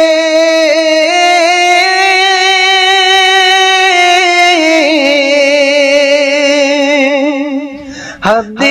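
Bengali devotional song: a singer holds one long, wavering note that steps down in pitch about halfway through, breaking off briefly near the end before the next line starts.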